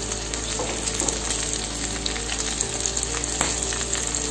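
Slit green chillies sizzling in shallow hot oil in a nonstick pan: a steady frying hiss with small crackles scattered through it.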